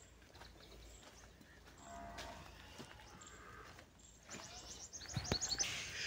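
Zebu cattle lowing faintly with a short moo about two seconds in. Near the end come repeated high chirps of birds.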